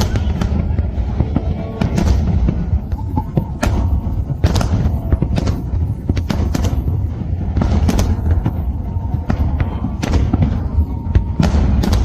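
Fireworks display: a rapid string of sharp bangs and crackles from bursting aerial shells, several a second at times, over a continuous deep rumble of booms.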